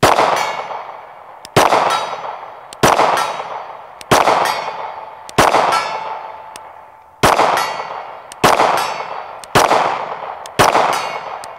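Glock 48 9mm pistol firing slow, aimed single shots, nine of them at roughly one every second to second and a half, each with a long echo fading away. Hits on the steel plate targets clang and ring.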